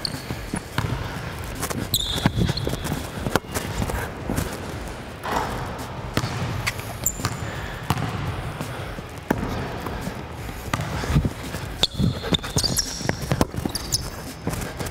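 Basketball bouncing on a hardwood gym floor, a scattering of sharp thuds, with brief high sneaker squeaks about two seconds in, around seven seconds in and again near the end.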